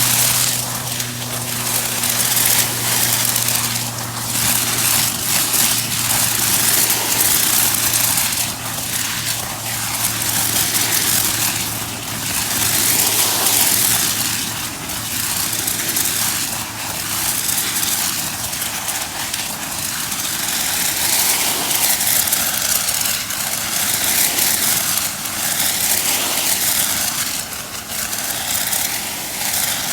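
Pressure washer's zero-degree jet blasting into thistle plants: a loud, hissing spray that swells and dips as the stream is swept over the stalks, with the pressure washer's engine running underneath.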